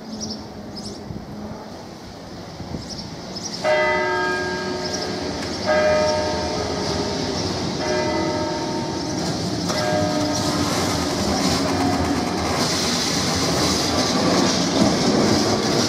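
Lisbon heritage electric tram coming along its street rails, its warning gong ringing four times about two seconds apart. It then rumbles and screeches louder on the track as it passes close.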